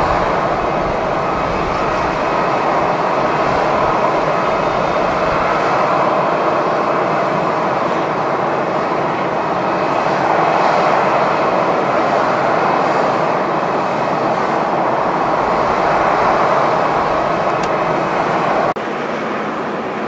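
Jet engines of a taxiing airliner running steadily, a loud even roar with a faint high whine. The sound drops abruptly a little before the end.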